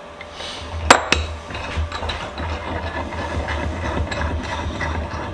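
Erie 102 1/2 cast-iron bench vise being worked by hand after reassembly: two sharp metal clanks about a second in, then a run of small clicks and scraping as the oiled screw is turned and the jaw slides.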